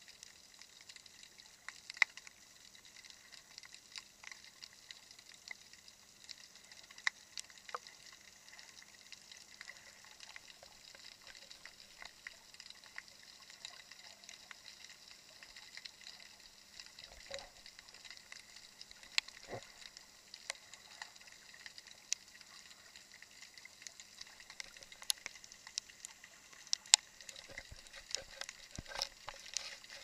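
Underwater crackle of snapping shrimp on a shallow reef: a dense scatter of sharp clicks and snaps over a soft hiss, with a faint steady low hum underneath. A few duller knocks sound about halfway through and again near the end.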